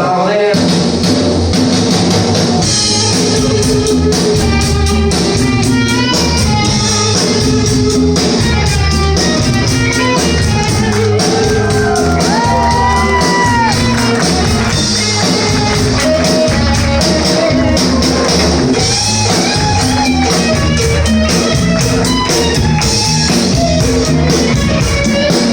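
Rock music from a band: guitar and drums with a steady beat, and sung or shouted vocals with a few held notes midway.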